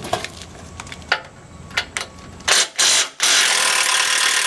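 Cordless impact driver with a 15 mm socket hammering on a tow-hook bolt on a pickup's frame to loosen it: a few light clicks of the socket being handled, then two short bursts about two and a half seconds in and a longer continuous run of hammering.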